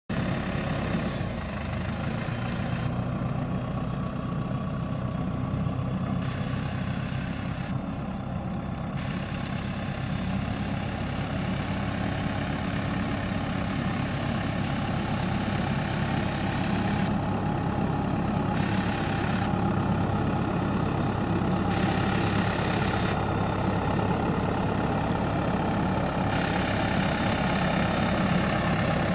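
Deutz-Fahr Agroplus tractor's diesel engine running steadily under load, powering a rear-mounted rotary trench cutter that mills a planting slot through the soil.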